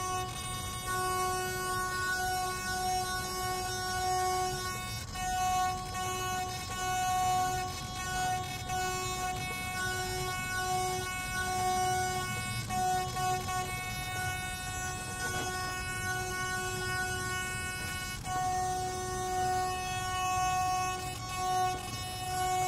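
Savox RC servo whining at one steady pitch, starting and stopping in stretches from under a second to several seconds long.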